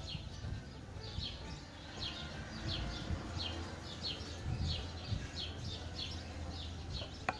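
A bird chirping over and over: short high chirps that slide downward, about two a second, over a low rumble. There is one sharp click near the end.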